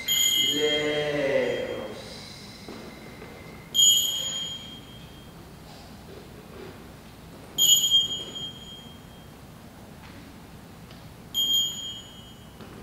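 A high, bell-like metallic chime struck four times, about every four seconds, each stroke ringing and fading over about a second. Under the first stroke a lower wavering pitched tone sounds for about two seconds.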